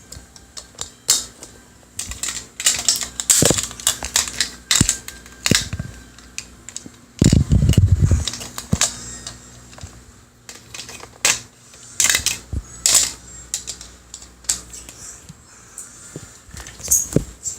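Irregular clicks, taps and knocks, like objects bumping and rubbing against the recording device right at the microphone. A louder low buzzing, rubbing sound lasts about a second, some seven seconds in.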